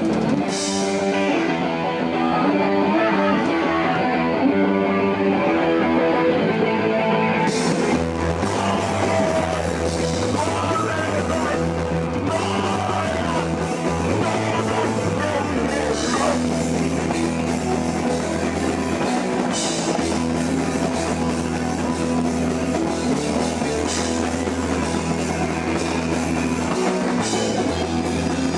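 Punk band playing live. For about the first seven seconds a distorted electric guitar riff plays with no cymbals. Then drums with cymbals and bass guitar come in, and the full band plays on.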